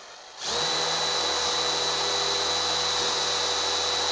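Combi drill in drill mode on second speed, starting about half a second in and running at a steady speed with a constant high whine as a 7 mm metal drill bit bores into pine sleeper.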